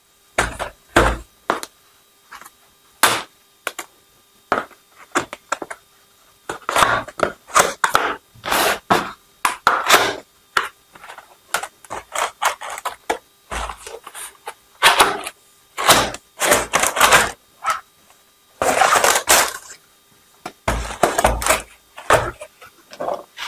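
A cardboard keyboard box being opened and unpacked by hand: irregular knocks and thumps with stretches of cardboard scraping and sliding as the flaps are opened and the contents pulled out.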